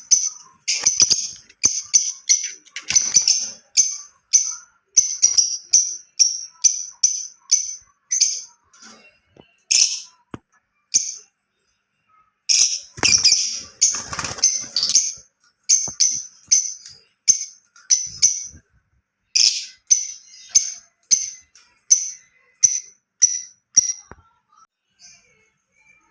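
Fischer's lovebirds calling: a string of shrill, short high chirps at about two a second, thickening into bursts of harsh squawking a few times, the longest about halfway through. The calls die away near the end.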